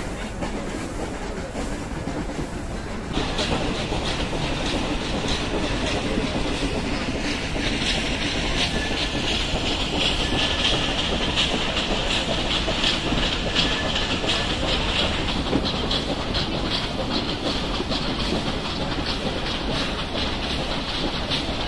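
Steam-hauled Nilgiri Mountain Railway toy train running, heard from the carriage: a continuous rattle of wheels clacking over the rail joints, growing louder about three seconds in.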